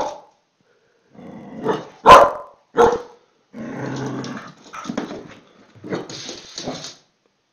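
A small dog barking in a few sharp barks, then a low, steady growl. A rough, noisy sound follows near the end.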